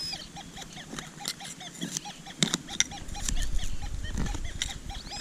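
Nokta Legend metal detector's audio: a fast run of short, low-pitched iron grunts, about five a second, as the coil sweeps over iron-filled ground, with a steady high-pitched target tone briefly at the start and again near the end. Scattered sharp clicks come through over it.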